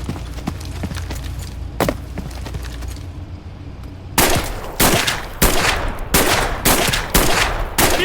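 Video game gunfire: scattered distant shots over a low rumble, then from about halfway in a loud, rapid string of shots, roughly two bursts a second.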